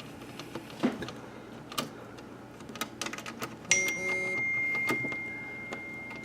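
Scattered sharp clicks. Then, nearly four seconds in, a single high electronic chime sounds and slowly rings out.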